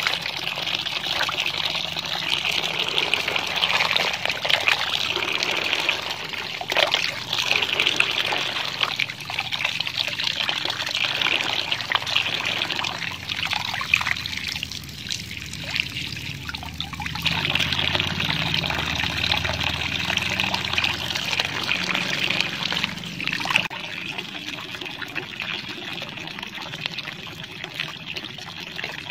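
A stream of water from a pipe pours into a plastic basin of water, splashing steadily as hands rub and rinse snails in it.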